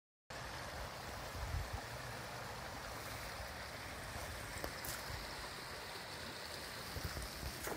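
Steady rushing of a flowing stream, with a few brief low rumbles on the microphone.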